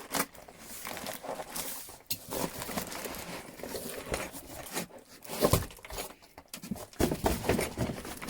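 Paper and packaging being rustled and handled, with irregular crinkling and a few louder knocks about five and seven seconds in.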